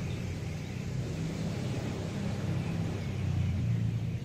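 Sea surf washing on a beach under a steady low engine drone, typical of a motorboat offshore.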